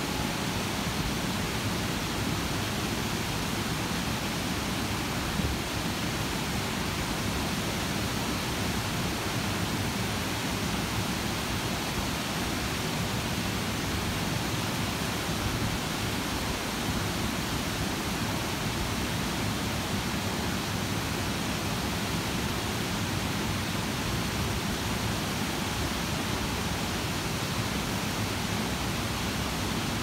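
Water of the Active Pool, the terraced concrete waterfall at the Fort Worth Water Gardens, cascading down its stepped tiers into the sunken pool: a steady, even rush of falling water.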